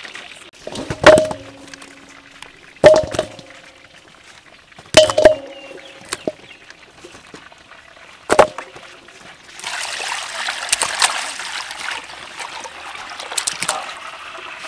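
A large stainless steel bowl being knocked five times as raw chicken drumsticks go into it, each knock with a short metallic ring. From about ten seconds in, water is poured into the bowl over the chicken and runs steadily for several seconds.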